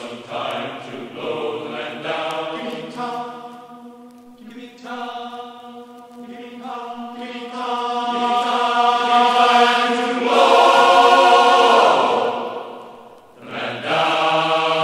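A group of voices singing a sea shanty in long, drawn-out notes, dipping briefly about four seconds in and again near the end.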